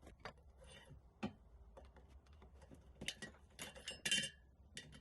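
Light handling sounds of tools and metal parts on a workbench: scattered small clicks, a knock about a second in, and short scraping or rustling between about three and four seconds in.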